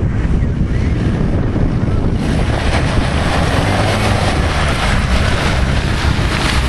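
Land Rover Defender pickup's engine running under load as it climbs a muddy track toward the microphone, growing louder and fuller about two seconds in as it draws close and passes. Heavy wind buffeting on the microphone rumbles underneath.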